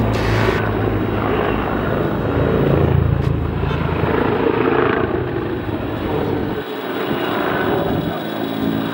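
T129 ATAK attack helicopter flying overhead: a steady drone of its rotor and twin turboshaft engines, with the deepest part of the sound thinning out for a few seconds late on as it manoeuvres.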